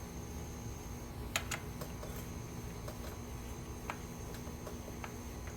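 A few light, separate clicks and taps of small tools and screws being handled while working on a backpack blower's recoil starter, over a steady low hum.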